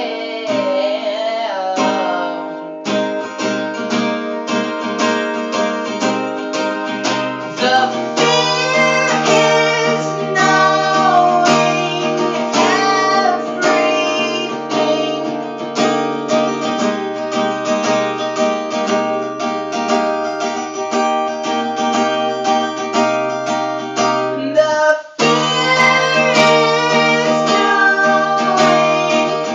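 Acoustic guitar strummed, with a voice singing over it. The playing breaks off for a moment about 25 seconds in, then carries on.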